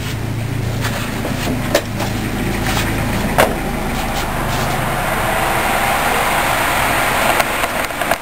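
Electric fan running, a steady rush of air with a low motor hum, growing louder about five seconds in. A few sharp knocks as the metal model billboard is handled on its wooden base.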